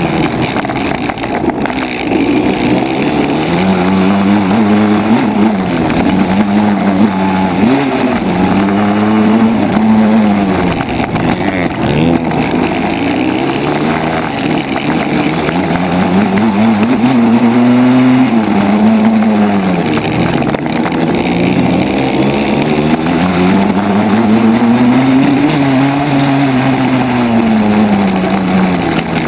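Dirt bike engine heard close-up from on the bike, its note rising and falling over and over as the throttle is opened and closed around a motocross track.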